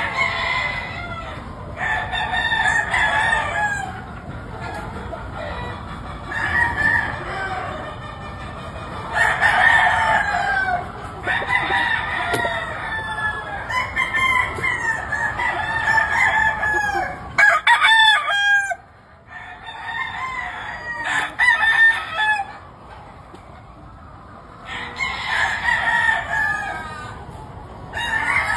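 Gamefowl roosters crowing again and again, several crows overlapping at different pitches, with hens clucking in between.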